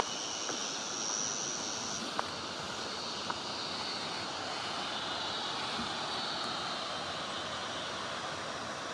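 Steady rush of flowing water from the falls' creek, with a few faint ticks in the first few seconds.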